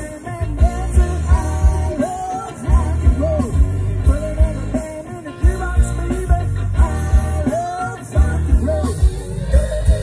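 Live rock band playing amplified: a singer over electric guitars and a steady kick-drum beat.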